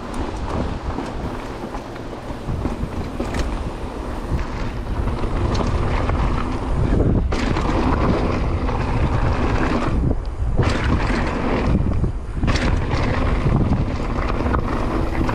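Wind buffeting the camera microphone, with tyre noise, as a mountain bike rides fast down a dirt trail. The rush drops out briefly three times in the second half and cuts off at the end.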